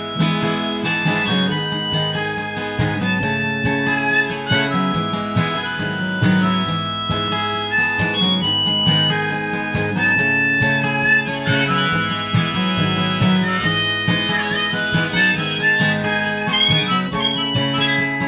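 Background song's instrumental break: a harmonica plays a melody of held notes over acoustic guitar accompaniment.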